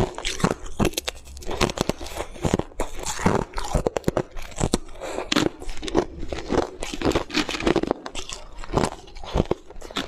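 Close-up crunching of coloured ice being bitten and chewed: a dense, irregular run of sharp cracks and crunches.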